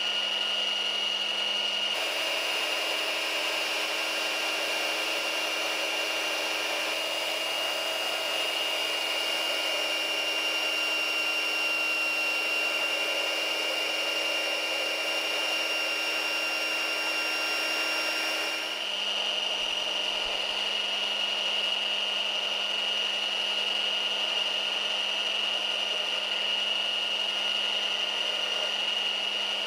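Kobalt 24V brushless cordless belt sander running steadily with a whine while a slice of red cedar is held against its moving belt, the wood rubbing on the abrasive. The tone shifts abruptly twice, about two seconds in and again past the middle.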